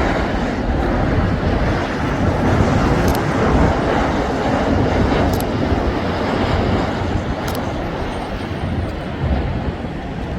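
Boeing 737 airliner's jet engines on landing, a loud steady rush that eases off slightly near the end, with low rumble from wind on the microphone.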